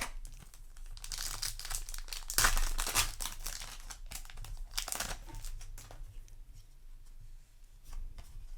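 Foil booster-pack wrapper crinkling and trading cards rustling as they are handled, loudest in the first half, then quieter with a few light clicks.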